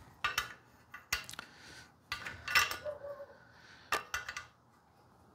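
A string of sharp, irregular metal clicks and clinks as a main bearing shell is handled and seated into its saddle in an air-cooled VW engine case.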